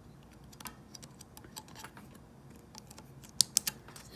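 Small plastic and metal parts of a T-blade hair trimmer's head clicking and tapping as they are handled and fitted together by hand, with a quick run of sharper clicks about three and a half seconds in.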